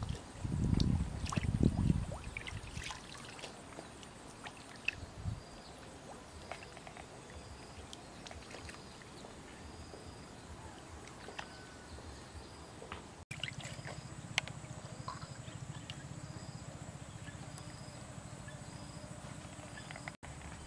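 Water splashing and sloshing in a pan as whole red fish are rubbed and washed by hand, with the loudest splashes in the first two seconds, then quieter dribbling and small splashes.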